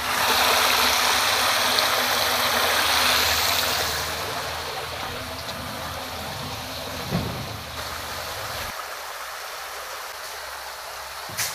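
Water pumped by a freshly repaired electric water pump gushing and splashing into a tank, loudest for the first few seconds and then settling to a softer steady rush. A low hum underneath cuts off about nine seconds in.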